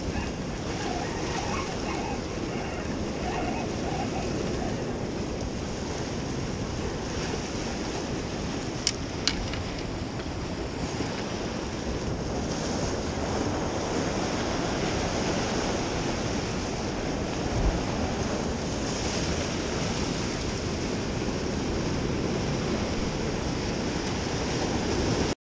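Ocean surf washing and breaking over the jetty rocks below, a steady rushing noise mixed with wind buffeting the microphone. Two sharp clicks about nine seconds in.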